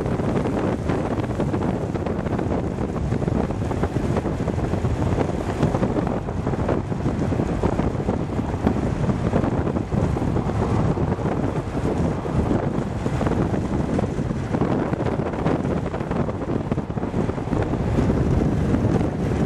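Steady wind rushing over the microphone of a camera on a car moving at highway speed, mixed with road noise.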